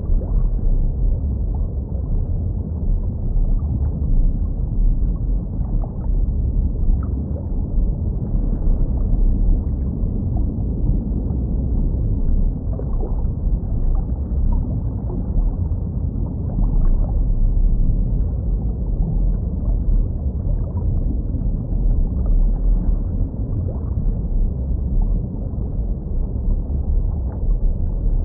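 Muffled underwater ambience of a fish tank: a steady low rumble of moving water, with a few faint scattered pops.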